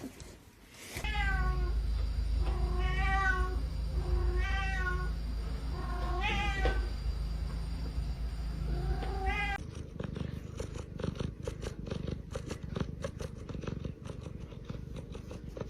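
A domestic cat meowing repeatedly, about six drawn-out meows over a steady low rumble. The sound then cuts off suddenly and is followed by a run of irregular clicks and low rustling noise.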